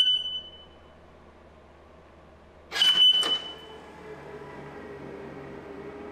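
Tesla Model X power frunk closing on a key-fob command: a short high beep at the start, a louder clunk with another beep about three seconds in, then a steady low hum from the actuator motor as the hood comes down.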